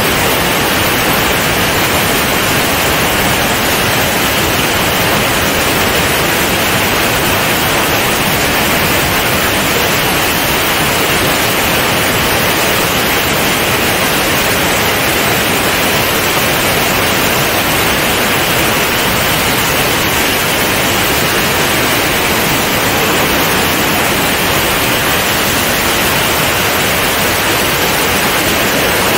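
Steady, loud rush of wind over a microphone mounted outside on a Comco Ikarus C42 ultralight in flight, with no engine tone standing out.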